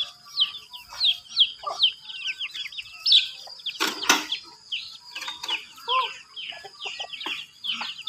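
Chickens clucking and peeping, with a rapid string of short high falling chirps, and a brief loud rustling burst about four seconds in.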